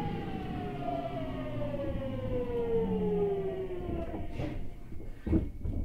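Hitachi GTO-VVVF traction inverter of a Seibu 6000 series train whining and falling steadily in pitch as the train brakes for the station, heard inside the car. The whine cuts out about four and a half seconds in, and a few knocks follow as the train slows to a stop.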